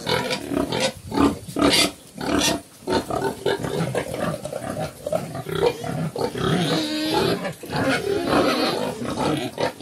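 Cambodian black pigs (Chrouk Kandorl), a sow and her piglets, grunting in a quick run of short repeated grunts, with one longer, higher call about seven seconds in.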